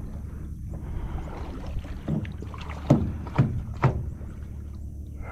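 Knocks on an airboat's hull: a soft knock about two seconds in, then three sharp knocks about half a second apart, over a steady low rumble.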